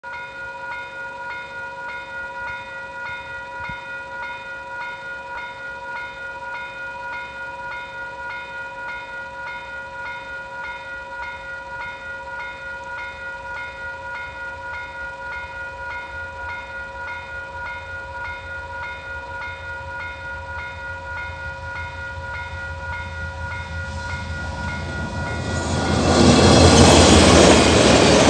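Level crossing warning bell ringing steadily in a rapid repeat. A freight train's approach rumbles low and grows louder under it. About two seconds before the end, the train reaches the crossing and a loud rush of locomotive and wheels takes over.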